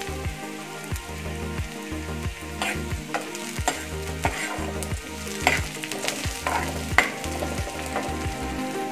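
Sliced onions and bay leaves sizzling in hot oil in a frying pan as they brown. A metal spoon stirs them, scraping and tapping against the pan several times.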